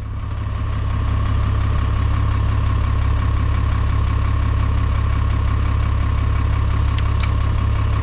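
Toyota Land Cruiser 61's diesel engine idling steadily, heard inside the cabin, a heavy low hum with a thin steady whine on top, building up over the first second.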